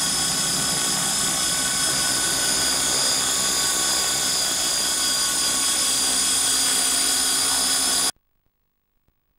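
450-size radio-controlled helicopter hovering: a steady high whine from its motor and gears over the rotor noise, cutting off abruptly about eight seconds in.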